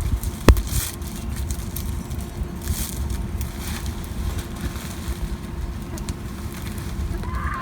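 Wind rumbling on the microphone, with one sharp click about half a second in and a few faint crackles.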